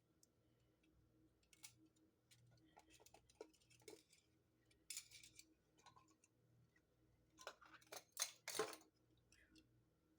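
Faint clicks and taps of a measuring spoon and spice container as cayenne pepper is measured out, with a short rustle of shaken powder about five seconds in and a quick cluster of louder clicks near the end.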